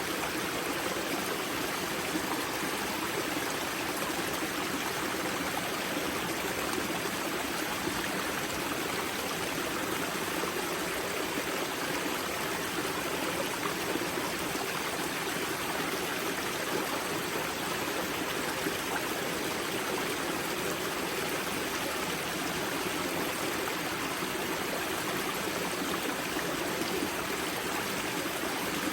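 Water of the Grza river's spring source rushing and splashing steadily over stones, an even unbroken flowing sound.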